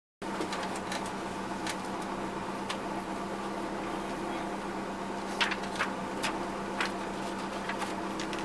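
Rally car engine idling steadily while the car stands still, heard from inside the cabin, with a few sharp clicks in the second half.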